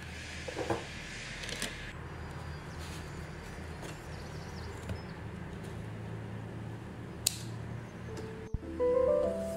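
Light rustling of a kraft paper gift bag and its ribbon handles being handled while a tag is tied on, with a single sharp click about seven seconds in. Background music comes in near the end.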